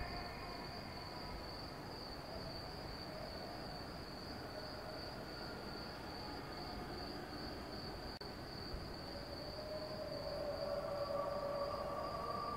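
Steady, high-pitched insect chirring, a dawn chorus of insects. Behind it, distant muezzins' calls to prayer waver faintly, and a held chanted note comes through more clearly near the end.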